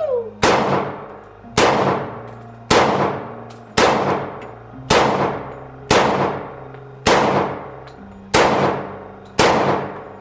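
A Glock 20 10mm pistol fires nine single shots at a slow, even pace, about one a second. Each shot rings out with a long echo in the indoor range.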